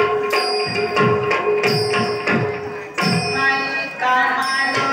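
Live music accompanying a Manipuri dance: a hand drum struck in an irregular rhythm with low strokes that fall in pitch, a steady held note, and high ringing metallic tones. A melody line comes in about three seconds in.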